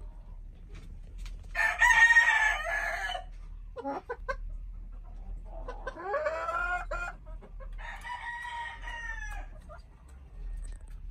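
Chicken calling: three long, drawn-out calls of about a second and a half each, with a short call between the first two.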